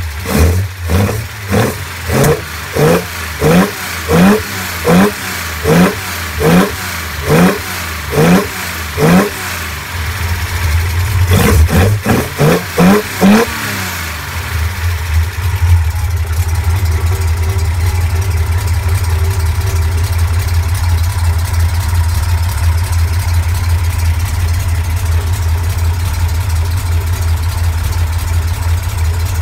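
L28 straight-six with triple Weber carburettors blipped by hand at the throttle linkage: about a dozen quick revs, a short pause and four more. After that it settles to a steady idle.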